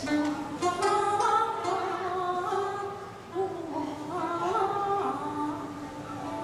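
A woman singing a slow melody with long held notes, accompanied by a yangqin (Chinese hammered dulcimer) whose struck strings ring under the voice.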